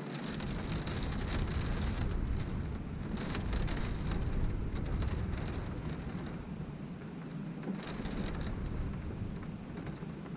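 Wind-driven rain beating against a window: a dense patter of drops over a low rumble of wind that swells through the first half and eases off toward the end.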